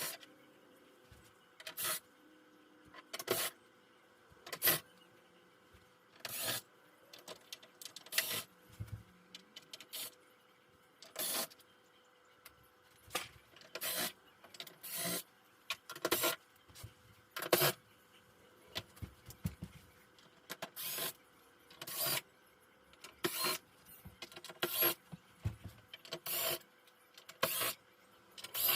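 A cordless screwdriver or drill running in short bursts, about one every second and a half, backing screws out of the TV's plastic back case.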